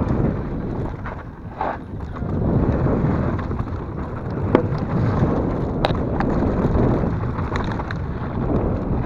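Wind buffeting the action camera's microphone and a mountain bike's tyres rumbling over a dirt trail at speed, with a few sharp clicks and rattles from the bike over bumps.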